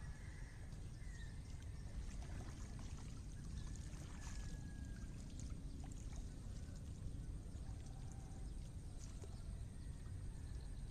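Faint water sloshing and trickling as a wet cast net is hauled out of a pond, over a steady low rumble, with a few faint ticks and short high chirps.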